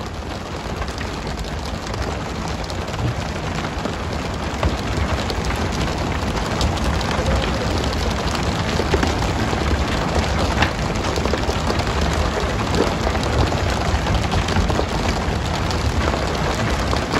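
Steady hiss and splash of a pole-and-line tuna boat's water sprays hitting the sea at the stern, over a low rumble, with scattered knocks and slaps as skipjack tuna are flipped aboard onto the deck.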